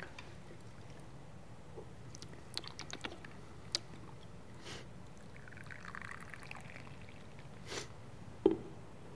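Brewed coffee poured from a glass Chemex carafe into a small ceramic cup: a brief trickling pour around the middle, among faint clicks of glass and ceramic. A short, sharper knock near the end is the loudest sound.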